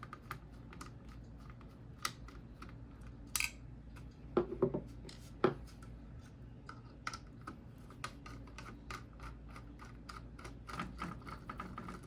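Small screwdriver backing out tiny screws from a router's circuit board: a string of light clicks and scrapes, with a few louder knocks about halfway through.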